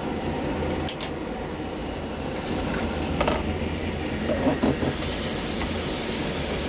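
Pot of fruit and grass boiling on the stove: a steady bubbling rush, with a couple of sharp clinks about a second in and again after three seconds.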